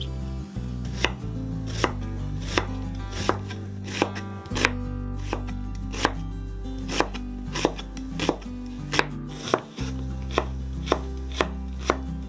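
A knife chopping food on a cutting board in a steady rhythm, about one to two cuts a second.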